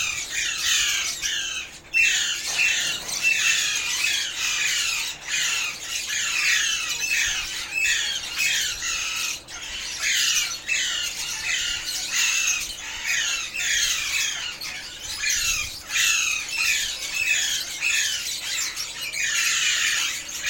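Alexandrine parrots squawking: harsh, rapid calls that overlap one another without a break.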